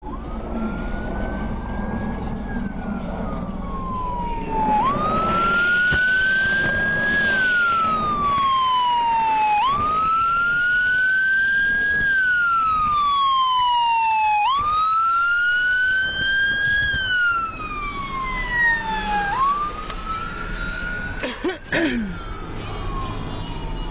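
Emergency vehicle siren in a slow wail, rising and falling in pitch about every five seconds. A few short knocks come near the end.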